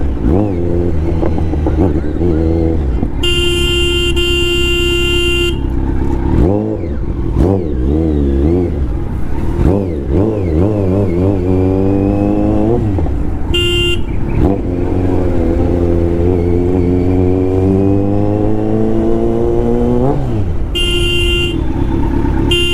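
Kawasaki Z900 inline-four engine running on the move, its pitch rising and falling as it is revved and accelerates through the gears. A vehicle horn sounds three times: a long blast a few seconds in, a short toot about midway, and another blast near the end.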